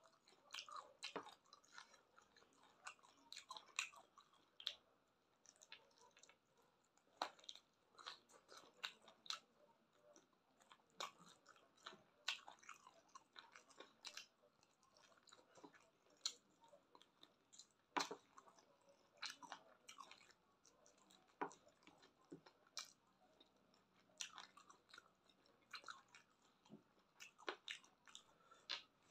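A person chewing with the mouth close to the microphone, eating a chicken and rice meal by hand. Wet lip smacks and sharp mouth clicks come irregularly, several a second, with occasional crunches.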